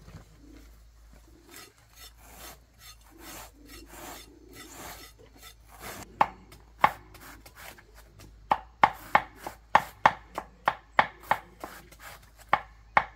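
Soft scraping strokes, then a knife chopping on a wooden cutting board: a few scattered chops at first, then about two thirds in a steady run of about three chops a second.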